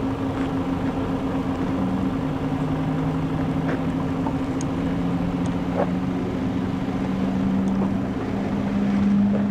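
The JCB Hydromax car's hydrogen-fuelled internal combustion engine running steadily, its pitch rising slowly over the last five seconds or so as it speeds up.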